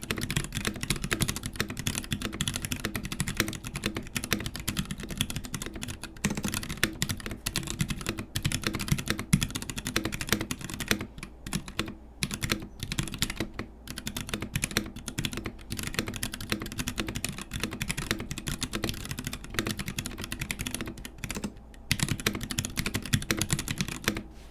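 Continuous fast typing on a Melody96 mechanical keyboard with Gateron Brown tactile switches, a brass plate and thick PBT Cherry-profile keycaps, sitting on a bare table: a dense run of clacking keystrokes with a few short pauses. The typing stops just before the end.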